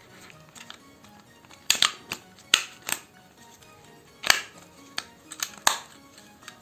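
Sharp mechanical clicks and snaps, about nine in irregular clusters, from a spring-loaded airsoft impact grenade replica being handled and its parts snapped shut, over quiet background music.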